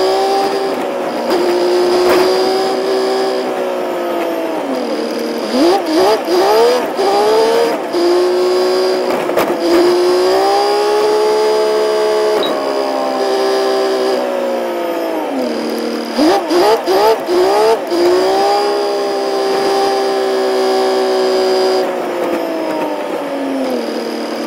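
Truck engine heard from inside the cab while driving. Its pitch sinks as the truck slows, then climbs in several quick rising steps as it accelerates, twice, with steady running in between. A thin high whine comes and goes.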